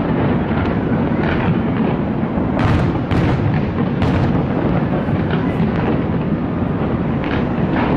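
Fireworks display bursting without a break: a continuous rumble of overlapping booms, with sharper bangs standing out about two and a half to four seconds in and again near the end.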